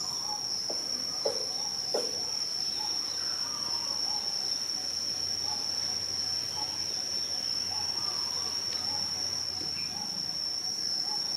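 Steady high-pitched insect drone, with faint short chirps underneath and two light knocks in the first two seconds.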